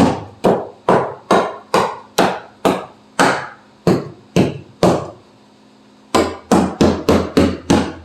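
Hammer blows on the sheet-metal floor of a 1973 Porsche 914, sharp ringing strikes about two a second, testing how solid the rusty floor is. They pause about five seconds in, then resume faster.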